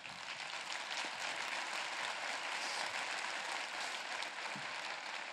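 An audience in a large hall applauding steadily.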